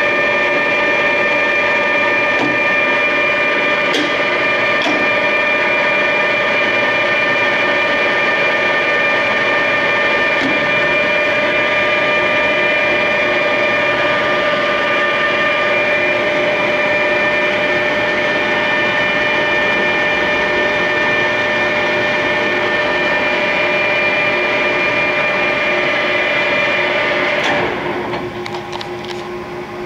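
1968 Clausing Colchester 8050 geared-head engine lathe running under power: a steady whine from the motor and headstock gears at several fixed pitches. Near the end the whine stops, leaving a quieter lower hum and a few clicks.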